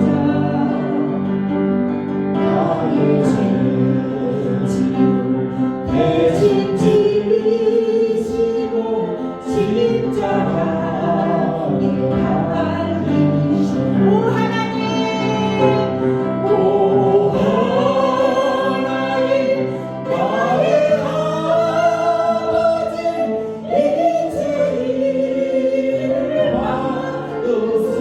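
Worship music: a group of voices singing a slow gospel hymn in unison over sustained instrumental backing.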